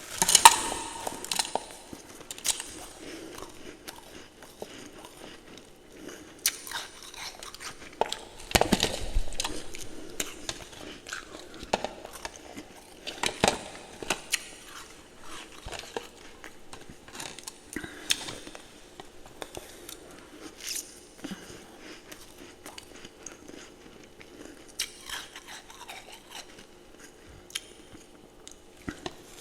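A person biting and crunching ice close to the microphone, in irregular clusters of sharp crunches with quieter chewing between them. The loudest bite comes right at the start.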